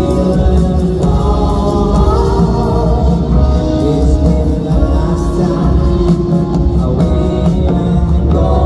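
A live band playing with a woman singing lead, heard from the stands of an arena through the PA, with a reverberant, boomy low end.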